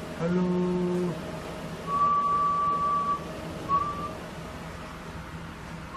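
Two whistled notes, one long and steady, then a short one that rises slightly, as a whistle test into the transceiver microphone while the amplifier keys up in FM, over a faint steady hum.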